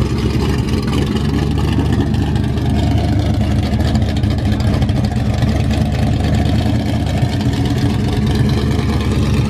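First-generation Chevrolet Camaro SS's V8 running as the car pulls slowly away, a deep, steady exhaust note with no sharp revs.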